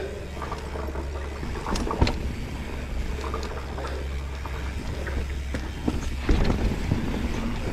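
Mountain bike riding down a dirt trail: steady wind rumble on the microphone under tyre noise and scattered rattles and clicks from the bike, with a sharp knock about two seconds in and a rougher, louder stretch near the end.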